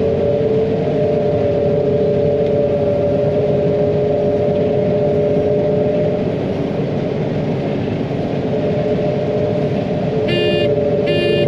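John Deere 9500 combine running steadily while harvesting soybeans, a loud, even machine noise with a constant two-tone hum. Two short electronic beeps sound near the end.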